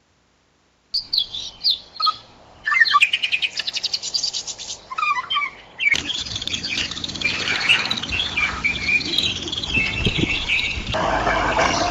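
Silence for about a second, then a string of different wild birds calling and singing: sharp high chirps, a fast rapid trill of repeated notes, then overlapping songs. The recordings change abruptly several times as one clip is cut to the next.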